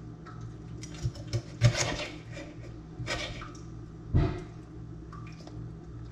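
A kitchen knife scraping along a fish on a wooden cutting board, with sharp knocks against the board. The loudest knocks come about a second and a half in and again about four seconds in.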